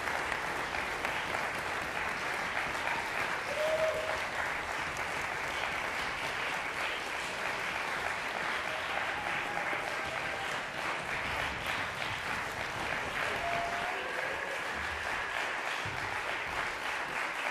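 Concert audience applauding steadily: dense, even clapping.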